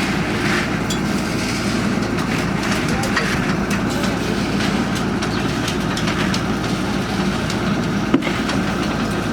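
Borehole drilling rig's engine running steadily under load, with scattered light metallic clicks and one sharp knock near the end.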